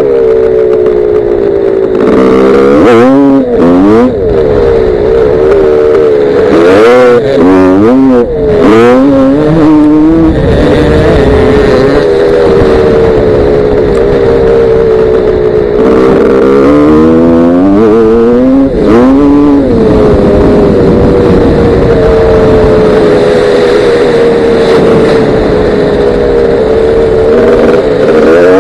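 Gas Gas 250 dirt bike engine heard close up from the rider's helmet, revving up and down repeatedly through throttle and gear changes, with longer stretches held at fairly steady revs.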